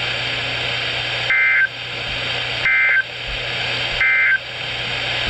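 NOAA Weather Radio end-of-message data bursts: three short, identical screechy digital bursts about a second and a half apart, the EAS code signalling that the warning message is over. A steady broadcast hiss runs between them, heard through a Midland WR-300 weather radio's speaker.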